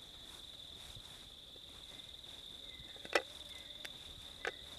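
Steady high-pitched trill of crickets, with two short sharp clicks about three seconds in and again a second later.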